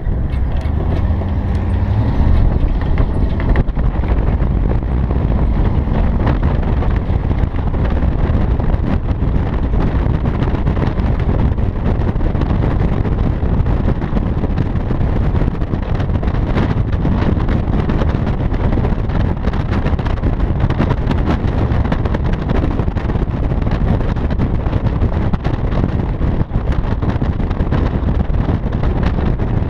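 Steady wind rush and buffeting on a microphone mounted on the roof of a moving car, over the low rumble of the car travelling down the runway.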